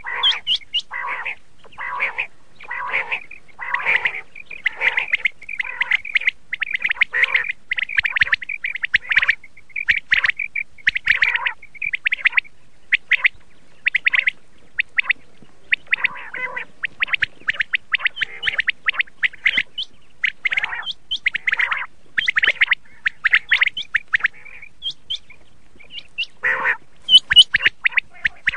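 Common quail calling: a long run of short, sharp calls in quick succession, broken by brief pauses.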